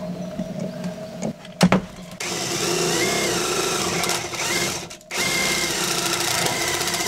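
A power drill boring into the sheet-steel body panel of a Hyundai Starex van, in two steady runs of about three seconds each, a short stop between them, after a sharp knock near the start. The steel is tough and the bit is not getting through.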